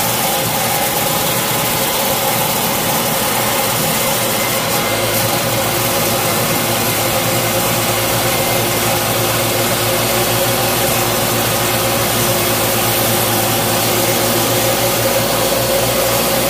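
Table saw running steadily with its blade shaving a square timber blank that is being turned in a jig into a round dowel: a continuous motor whine under dense cutting noise.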